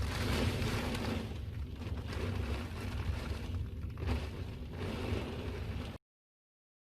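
Storm wind gusting against the microphone: a low rumble under a rushing hiss that swells and eases. It cuts off abruptly about six seconds in.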